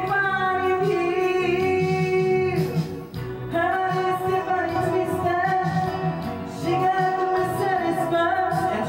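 Background music: a song with a woman singing long held, wavering notes over instrumental accompaniment.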